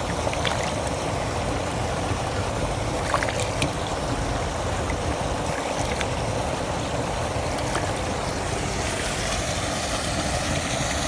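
Fast-flowing shallow water from a small foreshore waterfall running steadily over gravel, with hands rinsing in it and a few faint clicks.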